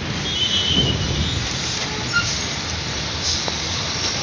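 Road traffic noise: a steady rumble of vehicles, with a brief high squeal about half a second in.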